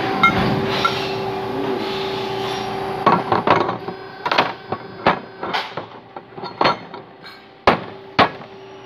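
Bent sheet-steel parts clanking as they are handled and set down on a steel worktable: a string of irregular sharp metallic knocks starting about three seconds in, the two loudest near the end, over a steady machine hum.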